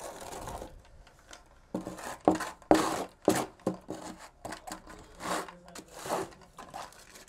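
Hand float scraping and rubbing over wet concrete on a stair step, in a run of short irregular strokes that begin after a quieter second or so, some with a faint squeal.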